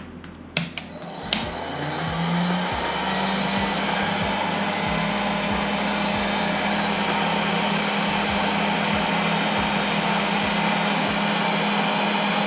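Two clicks, then a small blower motor, like a heat gun, switches on, spins up over about a second and runs steadily with a rushing of air.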